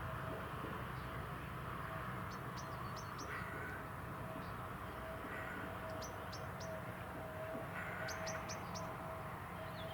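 Birds calling: three short bursts of quick, high chirps, three or four notes each, over a steady background hum.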